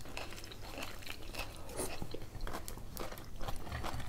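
Close-up eating sounds: two people chewing and biting food, with many small wet mouth clicks and crunches.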